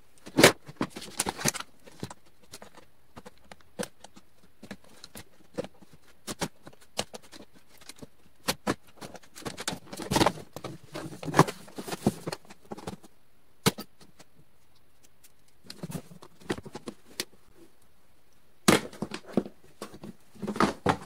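Box cutter slicing and scraping through the plastic lid of a Sterilite storage tote, in several spells of rasping, with irregular clicks and knocks from the lid being handled in between.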